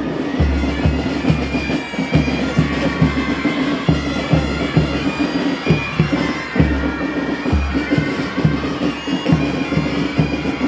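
Pipe band playing: bagpipes sounding a melody over their steady drone, with drums beating a regular march rhythm, the bass drum about twice a second.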